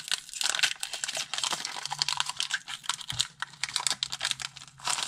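Foil wrapper of a Pokémon TCG booster pack crinkling in a dense run of rapid crackles as hands handle it and pull it open.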